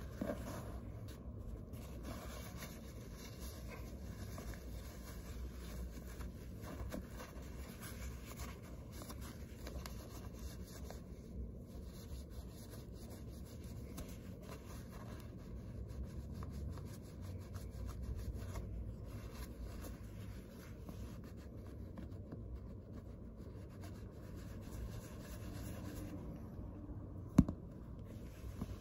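Dry paper towel rubbing over the brass hardware of a handbag, a faint steady rubbing as tarnish is wiped off. A single sharp click about a second and a half before the end.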